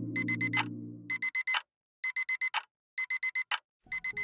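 Digital alarm clock beeping in quick groups of four, the groups repeating about once a second, while background music fades out in the first second.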